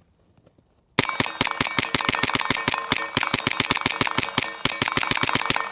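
Sig Sauer MPX-K 9mm firing a fast semi-automatic string from about a second in, at about seven shots a second with one brief break near the end. A steady ringing note carries under the shots.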